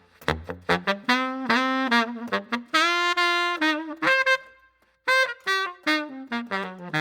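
Background music led by a saxophone-like brass melody, a run of short and held notes, with a brief pause a little past the middle.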